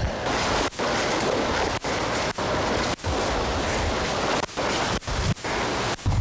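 Steady hiss of static from a wireless microphone that has lost its connection, cutting out to silence briefly about eight times.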